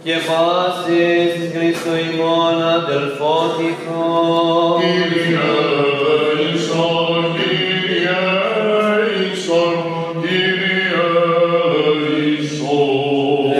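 A male cantor singing Greek Orthodox Byzantine chant, a slow melismatic line of long held notes that bend from pitch to pitch, with a steady low note sounding underneath.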